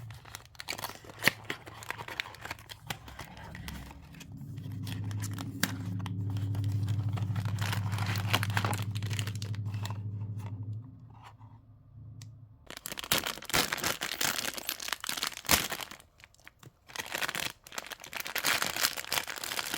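Blind-box packaging being torn open and crinkled by hand, with small clicks and rustles of handling. A steady low hum runs through the middle and is the loudest part.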